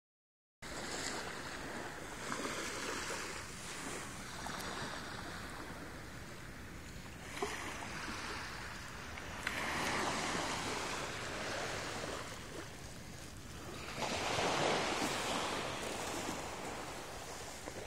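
Small waves washing onto a sandy shore, a steady rushing wash that swells louder around halfway and again near the end.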